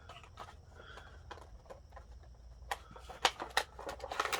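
Hands working at a toy's packaging: scattered small clicks and rustles, coming faster and louder near the end.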